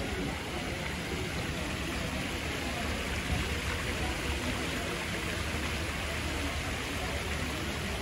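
Steady rain falling, an even hiss, over a low background rumble, with voices faintly murmuring.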